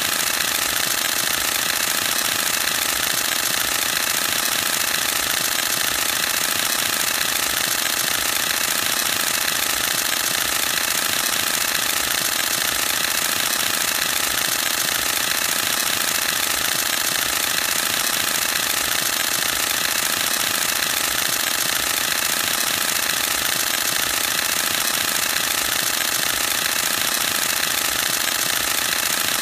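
Canon EOS-1D X Mark II DSLR firing a continuous high-speed burst: the reflex mirror and shutter clatter in a rapid, even, machine-gun-like rattle that never lets up.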